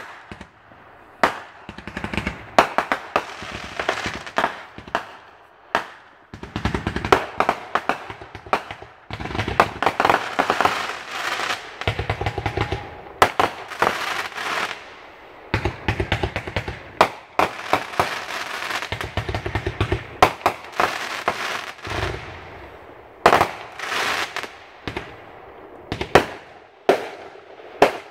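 Aerial fireworks going off in quick succession: many sharp bangs from bursting shells, with long stretches of dense crackling.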